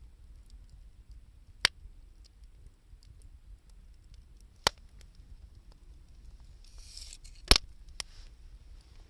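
Campfire of scrap 2×4 lumber and found wood crackling, with a few sharp pops spaced a few seconds apart, the loudest about three-quarters of the way through, just after a brief hiss.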